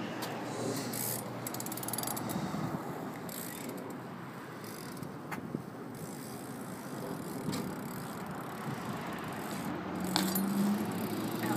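A Verde Eon BMX bike being ridden: steady rolling noise with scattered rattles and sharp clicks from the bike.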